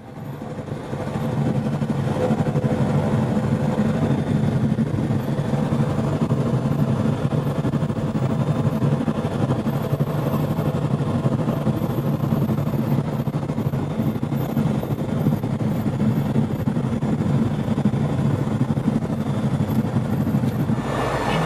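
Diamond DA40 light aircraft's engine and propeller running steadily, heard inside the cabin while taxiing. The sound fades in over the first second or so, then holds an even drone.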